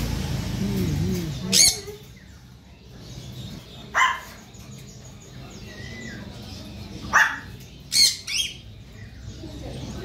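Young blue-and-gold macaw squawking five times, short harsh calls a second or more apart with the last two close together, while being hand-fed from a syringe.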